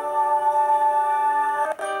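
Stock ringtone of a Black Fox B5 (BMM531A) phone playing: a melodic tune of held, chord-like notes with a plucked, guitar-like sound, changing notes near the end.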